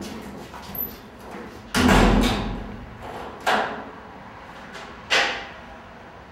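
A toilet cubicle door slammed shut with a loud bang about two seconds in, ringing briefly in the tiled room, followed by two sharper single bangs on the door later on.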